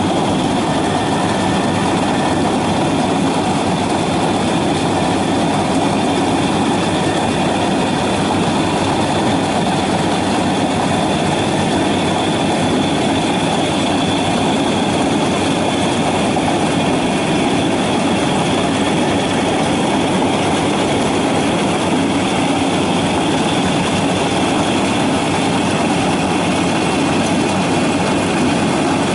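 Yanmar AW82V rice combine harvester's diesel engine and threshing gear running steadily under load while it cuts and threshes rice. The drone stays even, with a faint steady high whine over it.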